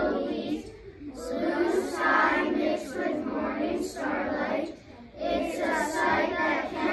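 A class of children reciting a text aloud in unison (choral reading), in phrases broken by short pauses about a second in and about five seconds in.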